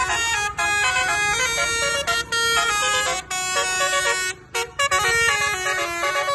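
Bus 'telolet basuri' musical air horn playing a melody, its loud multi-note tones stepping from pitch to pitch, with a brief break about two-thirds of the way through.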